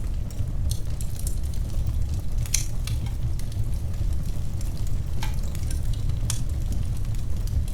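Wood fire burning: a steady low rumble with scattered sharp crackles and pops of burning wood, a few louder snaps among them.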